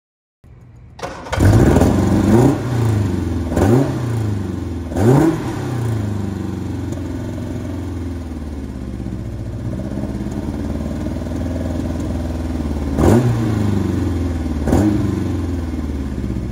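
A 1972 Mini Cooper's Bill Richards–built A-series engine is cranked on the starter, catches about a second in and is blipped sharply four times before settling into a steady idle. It is revved twice more near the end.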